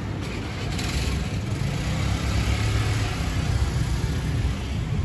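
A car driving past close by, its engine running under a steady low rumble of street traffic that grows a little louder after about two seconds.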